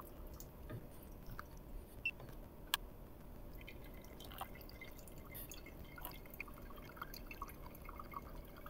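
Faint pour-over brewing: a thin stream of water from a gooseneck kettle pouring into a drip spreader over the coffee bed, with scattered drips and light ticks. There is one sharper tick a little under three seconds in.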